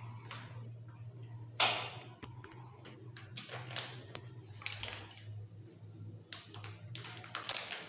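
Clear plastic packet crinkling and rustling in several bursts as it is handled and cut open with scissors, the loudest burst a couple of seconds in. A steady low hum runs underneath.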